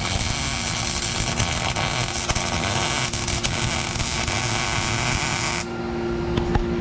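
MIG welder running a weld bead on sheet-metal console bracket, a steady crackling hiss that cuts off suddenly a little over five seconds in. Under it, the steady hum of the fan pulling out the welding smoke.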